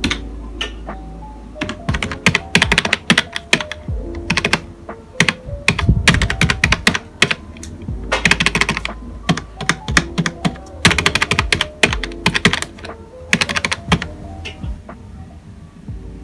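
Typing on a Philips computer keyboard: bursts of rapid key clicks about a second long with short pauses between, over soft background music.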